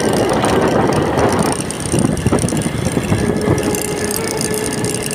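Motorcycle riding along a street, with wind rushing over the phone's microphone and the engine running underneath; a steady hum comes in about three seconds in.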